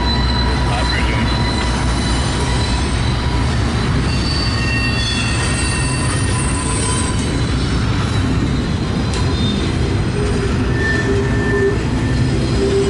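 Double-stack intermodal container cars of a CSX freight train rolling past close by: a steady, loud rumble of steel wheels on rail, with brief high-pitched wheel squeals now and then as the train comes off the wye.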